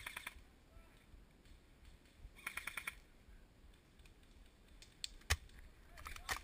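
Airsoft rifle firing short full-auto bursts, heard as rapid, evenly spaced clicking: one burst ending just at the start, another about two and a half seconds in, and more shots near the end. A single sharp knock a little after five seconds.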